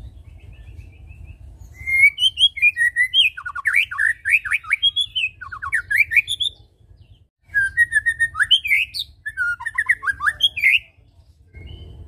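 White-rumped shama singing in two long bursts of fast, varied whistled notes that sweep up and down, starting about two seconds in, with a short break about seven seconds in.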